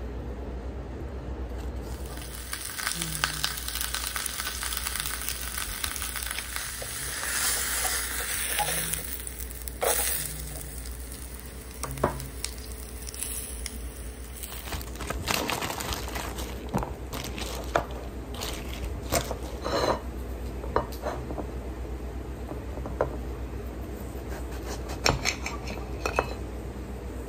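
Sage sausage and sliced onion on a tortilla sizzling in a frying pan, starting about two seconds in. From about halfway through, the sizzle gives way to scattered clicks and scrapes of a knife against a plate as a tomato is cut, over a steady low hum.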